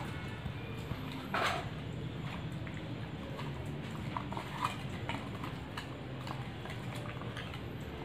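Hand rubbing a wet masala paste into pieces of pomfret in a steel bowl: soft squishing with irregular light clicks against the bowl, the loudest about a second and a half in.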